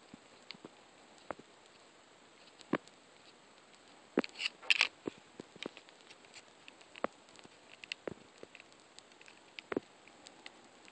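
Fingertips tapping and swiping on the touchscreen of an iPod nano 6th generation as it rests in its clear plastic case: scattered soft clicks, with a louder flurry of taps about four to five seconds in.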